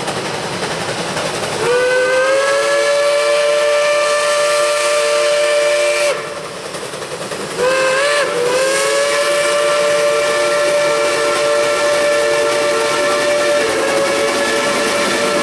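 Steam whistles of Shay geared steam locomotives working a triple-header: a long chord-like blast begins about two seconds in, and a second begins near eight seconds with a wavering start and then holds. Steady hiss of steam and exhaust throughout.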